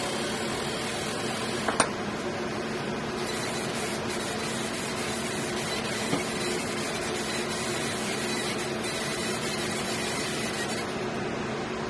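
Steady mechanical hum, like a running fan or extractor, with a sharp click a little under two seconds in and a fainter one about six seconds in.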